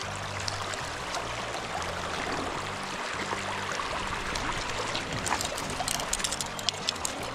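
Steady rush of a flowing river current, with a scatter of light sharp clicks in the last couple of seconds.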